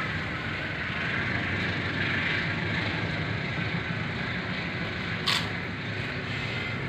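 Steady background hum and hiss, with one sharp click a little over five seconds in.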